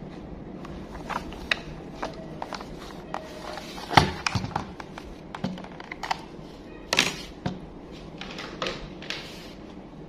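Hands handling toy packaging and toy train parts: scattered clicks, taps and rustles, with two sharper knocks about four and seven seconds in.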